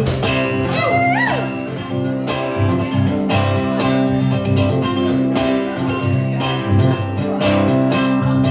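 Live band playing an instrumental intro: strummed guitars over a steady beat, with a few short sliding notes about a second in.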